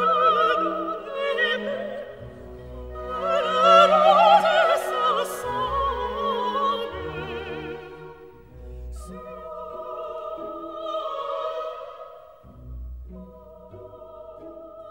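Background music: operatic singing with a wide vibrato over orchestral accompaniment, the voice swelling loudest about four seconds in.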